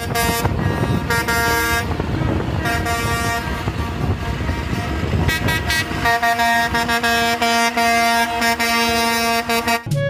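Air horns of a line of concrete mixer trucks honking over diesel engine rumble. From about six seconds in, one horn chord is held steadily.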